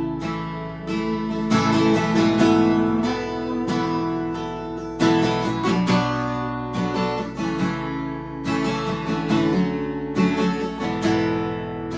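Acoustic guitar strumming chords, an instrumental passage between sung choruses of a worship song.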